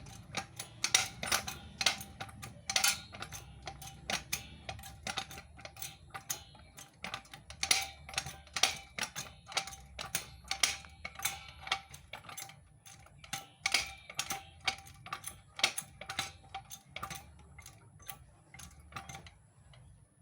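A 2-ton hydraulic car jack being pumped by its handle: a run of sharp metallic clicks, about one to three a second, that stop shortly before the end.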